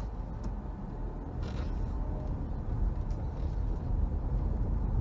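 Car driving slowly on a gravel road, heard from inside the cabin: a steady low rumble of engine and tyres that grows gradually louder.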